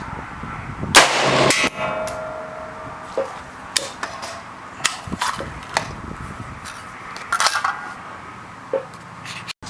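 A single AR-15 rifle shot in .223 about a second in, ringing out for about a second, followed by a series of lighter sharp metallic clicks and clanks.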